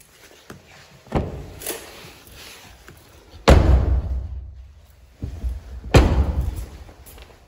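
Car door thudding: a lighter knock about a second in, then two heavy thuds about three and a half and six seconds in, each followed by a short low rumble.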